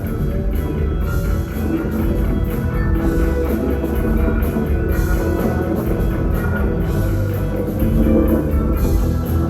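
Rock band playing, electric guitar and drum kit together.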